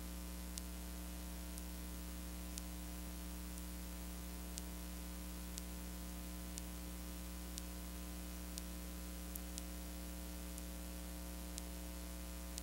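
Steady electrical hum and hiss from VHS tape playback with no program sound, with faint ticks about once a second.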